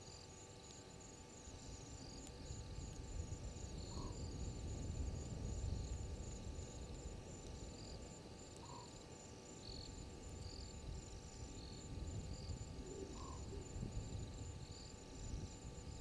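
Night bush ambience: insects trill steadily in a fast, high, even pulsing, with scattered higher chirps and a short, lower call repeating about every four to five seconds. Underneath is a low rumble that swells about five seconds in.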